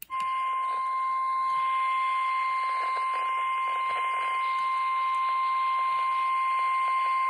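NOAA Weather Radio warning alarm tone, a single steady high beep of about 1050 Hz held unbroken, signalling that a flood warning broadcast is about to follow. A hiss of radio static runs under it.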